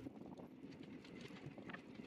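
Passenger train coaches running along the track: a low rumble with scattered, irregular clicks and knocks from the wheels on the rails.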